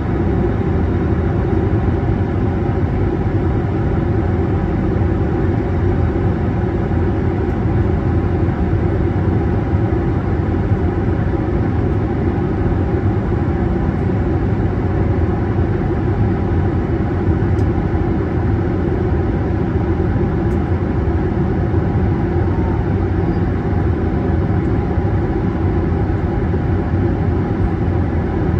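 Steady cabin noise of an Airbus A321neo climbing after takeoff: its Pratt & Whitney geared turbofan engines running at climb power, with airflow over the fuselage, heard from inside the cabin over the wing. An even, low-heavy drone with a few faint steady tones above it.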